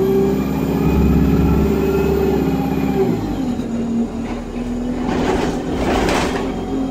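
Interior sound of an ADL Enviro 200 bus pulling away under load, its Voith automatic gearbox loud. The engine tone drops about three seconds in as the gearbox changes up, a high whine falls away at the same moment, and the tone then climbs slowly again. A burst of hiss comes near the end.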